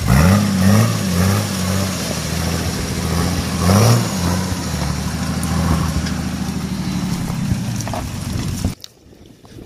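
Nissan Patrol 4x4's engine revving as it pushes through a flooded rut, with water splashing. The revs rise sharply near the start and again about four seconds in, then hold steady until the sound cuts off abruptly near the end.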